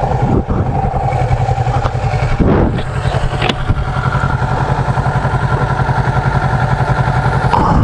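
Motorcycle engine idling with a steady, fast, even pulse.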